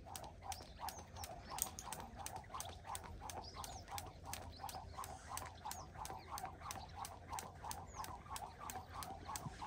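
Skipping rope slapping the ground in a steady, even rhythm of about three strikes a second, as someone jumps rope continuously.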